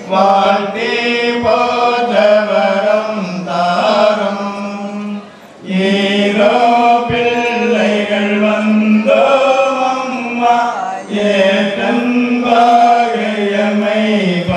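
Tamil church hymn sung in a slow, chant-like melody of long held notes, with a short break about five seconds in.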